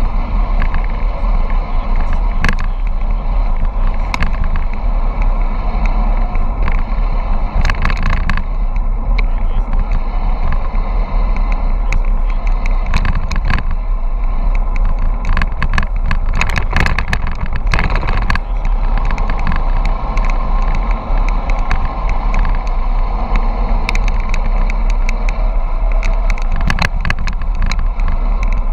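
Wind rushing over the microphone and tyre noise of a bicycle coasting fast downhill on asphalt, steady and loud, with scattered irregular clicks and knocks.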